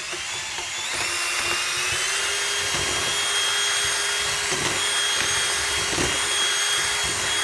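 Cordless drill on its low speed spinning an egg-beater whisk through a pan of thick drywall mud: a steady motor whine over the beater churning the mud, picking up speed slightly about a second in.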